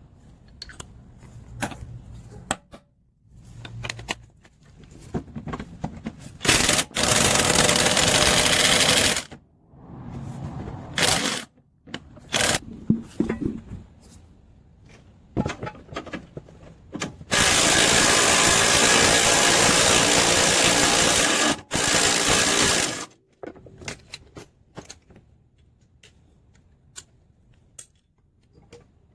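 Impact gun running in bursts on the engine mount bolts: two long runs and several short ones. Between them come clicks and clanks of tools and parts being handled.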